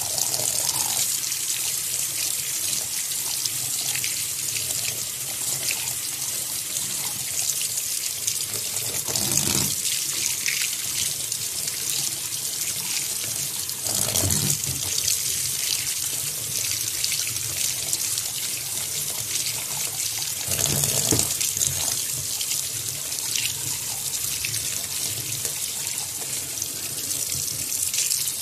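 Kitchen tap running in a steady stream into a stainless steel sink, splashing over duck eggs in a plastic colander as they are rinsed by hand, with a few louder splashes now and then.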